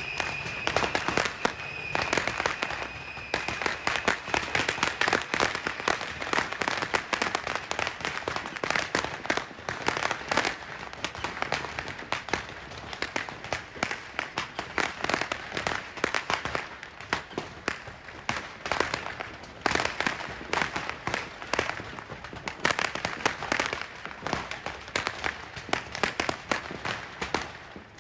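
Fireworks going off in a dense, unbroken barrage of rapid pops and crackles, with a high whistling tone in the first few seconds.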